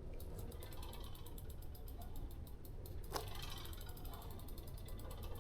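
Bicycle wheel spinning freely with the freewheel pawls clicking, a rapid even ticking of about nine clicks a second that grows fainter after about three seconds.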